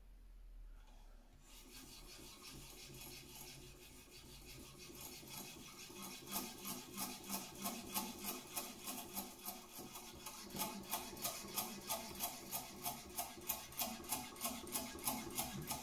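Naniwa Chosera 3000-grit finishing whetstone on a TSProf guided sharpener rubbing along a steel knife edge, faint at first, then in steady back-and-forth strokes about two a second.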